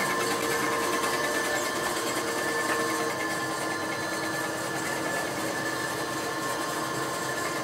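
Sheepskin-shearing machine running steadily: an even electric machine drone with a few steady tones, one lower tone dropping out about three seconds in.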